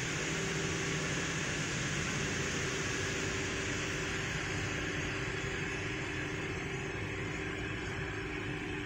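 Steady mechanical hum and hiss of a reverse osmosis plant running, its vertical multistage pump driving water through the system; the high hiss thins out about four seconds in.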